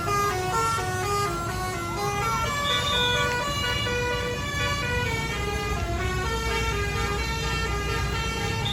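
Telolet basuri musical bus horn playing a quick tune of short held notes that step up and down several times a second, over low engine noise.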